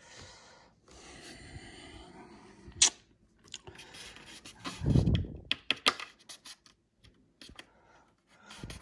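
Handling noises from working inside an opened electric unicycle shell: a breathy rustle for the first few seconds, a sharp click, a low thump about five seconds in, then a run of small clicks and taps.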